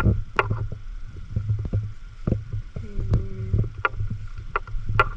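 Scattered light knocks and clicks of a handheld camera being moved through a room, over a steady low hum. A short pitched sound comes a little after halfway.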